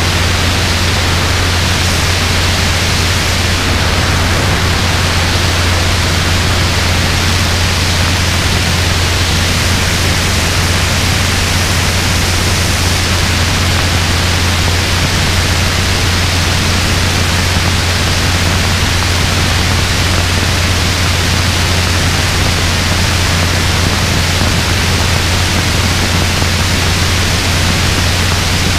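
Robinson R22 helicopter in steady flight, heard through wind blowing over an exposed arm-mounted GoPro: loud, even wind rush over a constant low drone from the rotor and engine.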